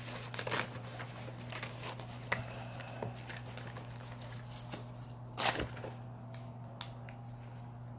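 Handling noise as a cordless ratchet is worked out of its packaging: scattered light clicks and knocks, with one louder rustle about five and a half seconds in, over a steady low hum.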